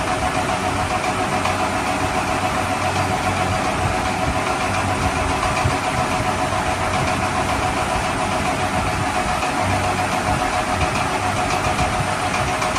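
Steady engine idling sound with a constant hum and a faint steady whine, running evenly without revving.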